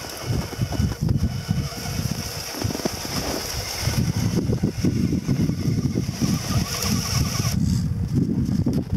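A 1/10-scale RC4WD FJ40 scale crawler driving over hard, crusted snow: a steady high electric-motor whine with a choppy low rumble from the tyres and chassis. The whine drops away near the end while the low rumble goes on.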